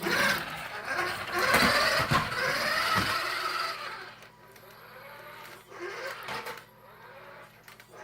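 Electric motor of a radio-controlled car whining as it is driven, its pitch rising and falling with the throttle; loud for the first four seconds or so, then fainter.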